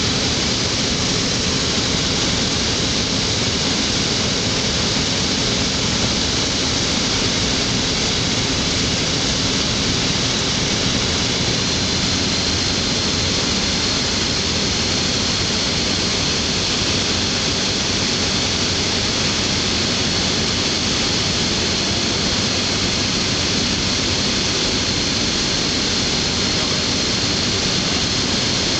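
Sky Ranger ultralight's engine and propeller running steadily on landing approach, heard from inside the cockpit with heavy wind rush. A thin high whine grows stronger about halfway through.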